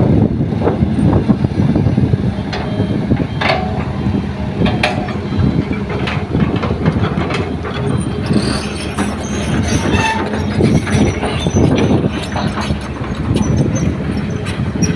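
Diesel engines of hydraulic excavators and dump trucks running steadily under load, with scattered sharp clanks and knocks as soil is loaded into a steel truck bed.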